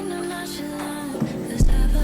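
Pop or R&B background music with sung vocals. The bass and beat drop out and come back strongly about one and a half seconds in.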